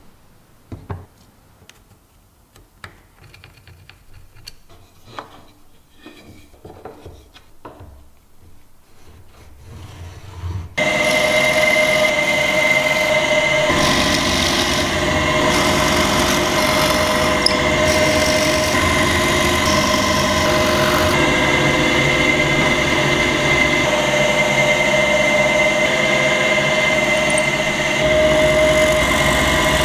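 A few light wooden taps and knocks as a small wooden box is handled on a workbench. About eleven seconds in, a bench drill press starts suddenly and runs steadily with a constant whine while its bit bores into a piece of wood.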